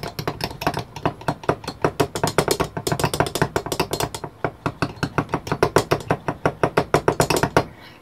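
A screwdriver's steel shaft stirring conductive silver paint in a small glass bottle, clinking rapidly against the inside of the bottle several times a second, stopping abruptly shortly before the end. The stirring loosens paint that has thickened with age.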